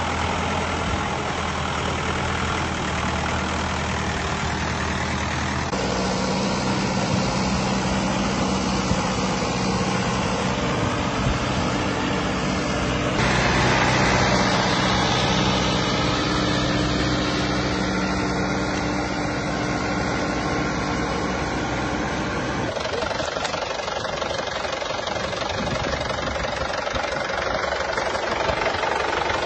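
A Mahindra farm tractor's diesel engine running steadily while it drives through a flooded field. The engine note changes abruptly a few times.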